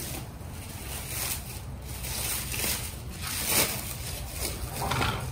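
Plastic stretch wrap and foil bubble packaging crinkling and rustling in a string of short bursts as hands pick at and peel packing tape on a wrapped parcel. The loudest rustle comes about three and a half seconds in.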